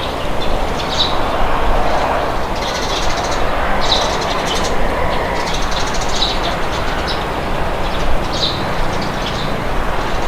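Steady wind with a low rumble, and small birds chirping in short bursts every second or two over it.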